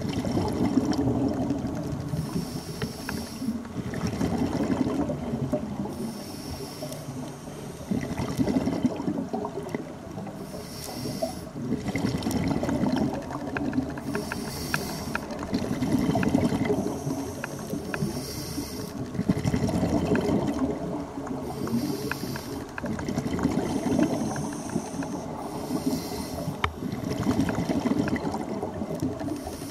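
Breathing heard underwater: a hiss with each breath in, about every two to three seconds, alternating with rough bubbling with each breath out.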